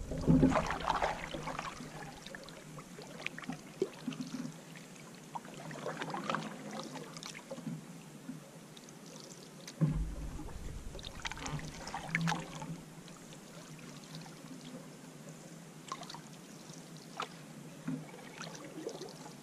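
Canoe paddle strokes: the blade dipping and pulling through calm water with soft splashes and drips every couple of seconds. A single dull thump comes about ten seconds in.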